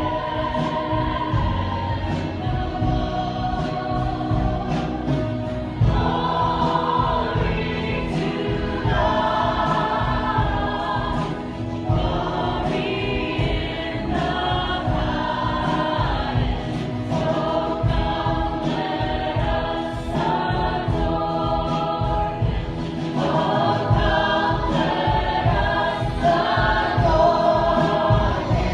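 Church worship singing: a group of voices singing a hymn in held phrases, with instrumental accompaniment.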